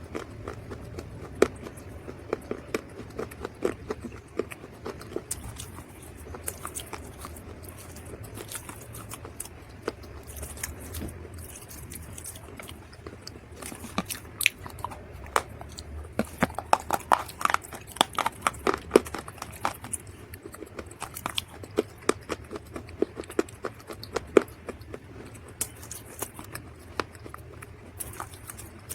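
Dried mud or clay being bitten and chewed close to the microphone, giving a dense run of sharp, irregular crunches.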